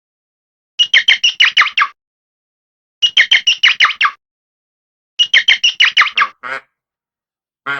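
Falcon giving rapid, harsh kek-kek-kek chattering calls in three bursts of about seven notes each, each burst lasting about a second, followed by two shorter, lower calls near the end.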